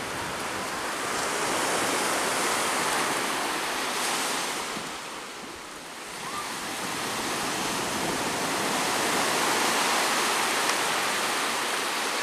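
Sea waves washing onto the beach as a steady rush that swells, eases off about five seconds in, then builds again.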